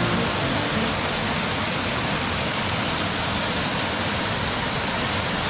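Creek water rushing steadily over rocks and falls, a continuous even rush.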